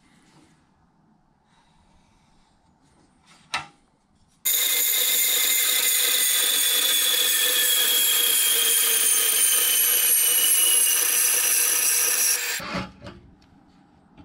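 Metal-cutting bandsaw running and cutting through a steel plate: a loud steady whine whose tones sink slowly in pitch as the blade cuts, starting abruptly about four seconds in and cutting off suddenly near the end, with a brief low rumble after. Before it, faint handling sounds and a single sharp click.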